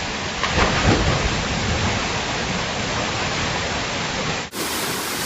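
Steady rushing of a waterfall, an even hiss of falling water. About four and a half seconds in, it cuts out for an instant and resumes brighter, a splice between two recordings.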